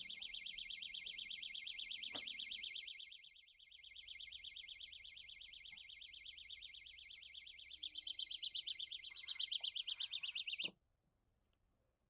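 The Kief snake trap's alarm buzzer sounds a shrill, rapidly pulsing electronic beep, the signal that a snake has been caught inside. It grows louder about eight seconds in as the shade cover is lifted, then cuts off suddenly when the alarm is switched off.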